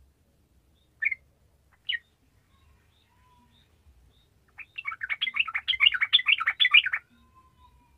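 Yellow-vented bulbul (trucukan) calling: two short single notes about a second apart, then a rapid bubbling, chattering song phrase lasting about two and a half seconds from a little past halfway.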